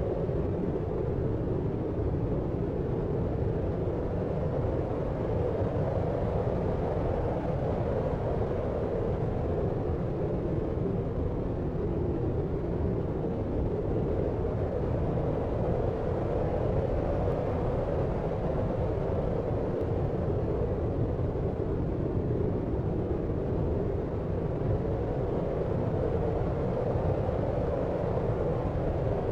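Steady deep noise for sleep: an even, low, dull noise with little hiss on top, holding level without any separate events.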